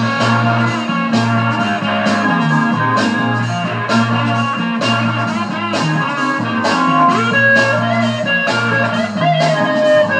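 Psychedelic rock music playing from a 7-inch vinyl single on a turntable, with a steady beat and a few notes that bend in pitch in the second half.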